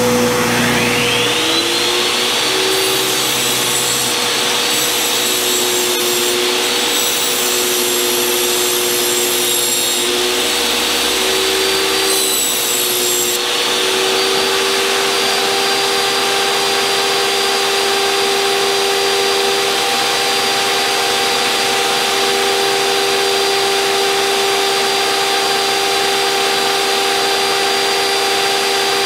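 Jobsite table saw starting up, its motor whine rising in pitch over the first two seconds, then running at steady speed while it rips thin 3/16-inch luan plywood into strips.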